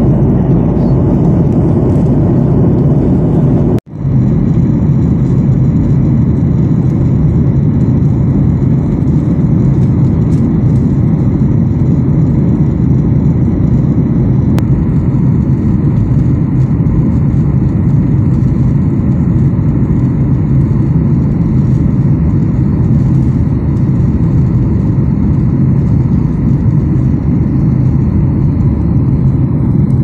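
Jet airliner cabin noise in flight heard from a window seat: a loud, steady low rumble of engines and rushing air. It breaks off for a split second about four seconds in, then carries on unchanged.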